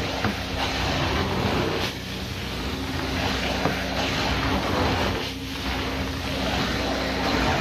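Carpet-extraction wand being pulled across carpet, its vacuum hiss swelling and easing with each stroke about every three seconds, over the steady hum of the cleaning machine.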